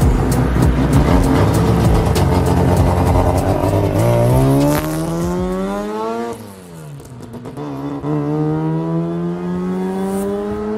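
Rotary engine of a Mk1 Ford Escort accelerating hard. After a few seconds of dense, loud running, the revs climb for about two seconds, fall away sharply about six seconds in at a gear change or lift-off, then climb steadily again in the next gear.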